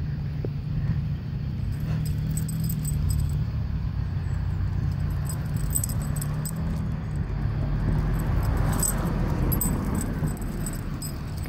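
Walking along a street pavement with a handheld phone: a steady low rumble of handling and street noise, with light clinking now and then, loudest about two, six and nine seconds in.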